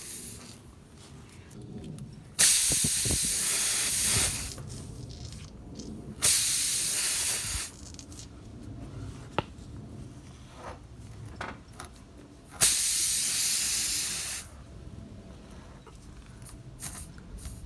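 Air hissing out of a punctured BFGoodrich KO2 tyre in three sudden bursts of one to two seconds each, as the reaming tool is pushed into and worked around the hole, with quieter scraping and a few clicks between the bursts.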